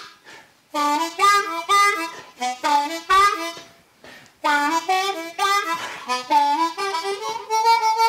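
Harmonica played in short phrases of bent, wavering notes, with a brief pause about half a second in and another about four seconds in.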